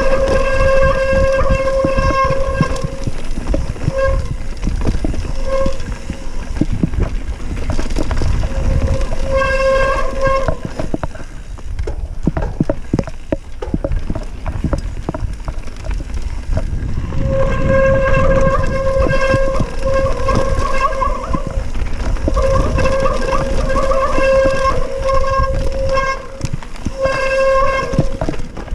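Mountain bike rear freehub buzzing while coasting downhill, a steady ratcheting tone that comes in stretches of a few seconds and drops out in between. Under it the tyres rumble on the dirt trail and the bike knocks and rattles over roots and stones, with wind on the microphone.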